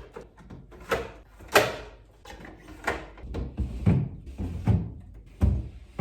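Fridge shelves and drawers being put back into the fridge: a series of knocks and clunks, about six in all, the loudest about one and a half seconds in.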